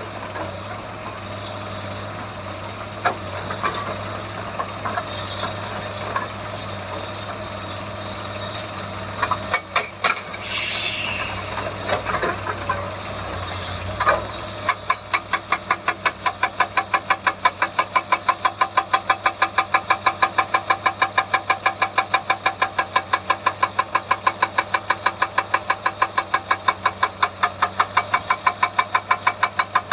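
Excavator's diesel engine running steadily with a few scattered knocks, then about halfway through the hydraulic rock breaker starts hammering in a fast, even rhythm of about four blows a second.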